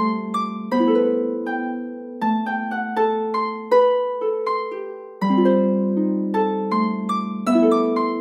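Medieval harp playing an instrumental passage: a plucked melody over lower chords, each note struck sharply and ringing away.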